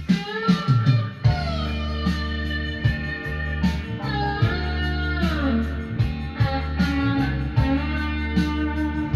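Guitar-led rock music played back through a Kenwood KA-9100 integrated amplifier and loudspeakers, heard in the room: bending electric guitar notes over a steady bass line and a regular drum beat.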